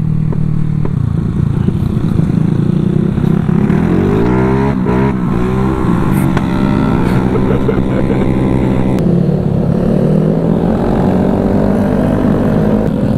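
Several motorcycles riding together at speed: a steady engine drone with road and wind noise, and engine notes rising and falling as other bikes pass close alongside. The sound changes abruptly about nine seconds in.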